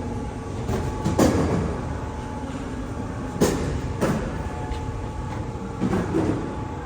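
A passenger ferry's engine drones steadily underway, with a low rumble and a constant hum. A few louder knocks cut in, the loudest about a second in and around three and a half seconds.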